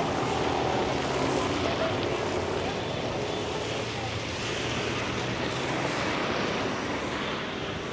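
Steady rain mixed with the continuous noise of street traffic, with faint voices early on.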